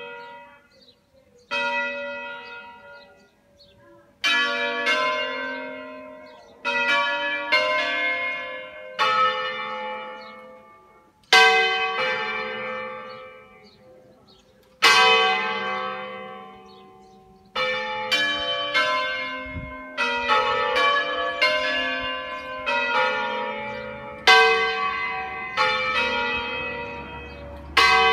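Five-bronze-bell church peal in G3, cast in 1947 by Carlo Ottolina and sons of Seregno, ringing a concerto. Swinging bells strike single notes at uneven intervals, each ringing on and fading. In the second half the strikes come about once a second and overlap.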